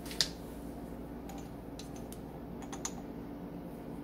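A few light clicks and taps of a plastic measuring spoon being handled while black pepper is measured: one sharper click near the start, then scattered faint ticks, over a faint steady hum.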